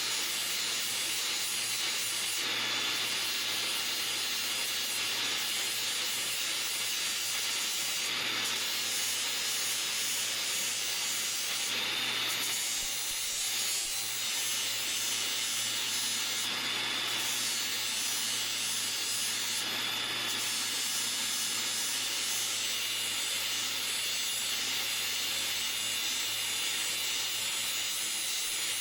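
Electric grinder running steadily, grinding rust off a steel axe head: an even, continuous hiss over a low motor hum, dipping briefly every few seconds.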